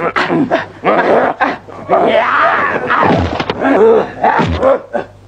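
Men grunting, groaning and yelling with strain as they wrestle and fight, in a string of loud vocal outbursts over a faint steady low hum.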